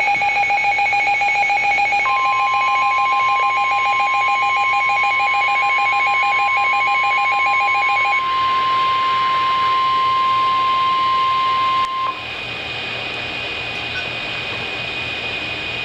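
NOAA Weather Radio warning alarm: the steady 1050 Hz alert tone, held for about ten seconds. For its first six seconds it overlaps a fast-pulsing electronic beeping at two pitches, which stops about eight seconds in. After the tone cuts off, radio hiss with a faint steady high whine.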